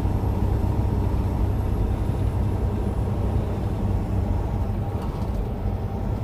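Steady drone of a semi truck's diesel engine and tyre noise, heard inside the cab while cruising at highway speed.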